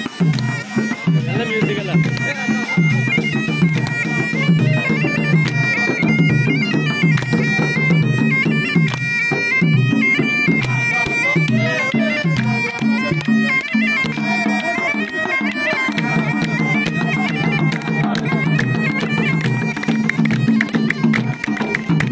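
Traditional Gulf folk troupe music: a reedy wind instrument plays a high melody that moves in steps, over a steady beat of frame drums and a larger drum.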